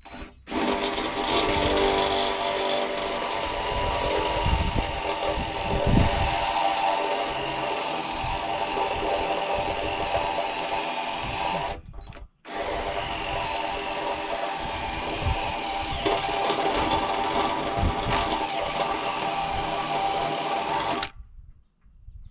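Power drill running with a step bit, boring holes through an aluminium awning pole in two long runs with a short stop about halfway.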